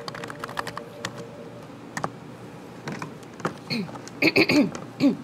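Typing on a computer keyboard: a quick run of key clicks for about the first second, then scattered clicks. From about three and a half seconds in, a louder cluster of short pitched sounds comes as the desk phone's corded handset is picked up.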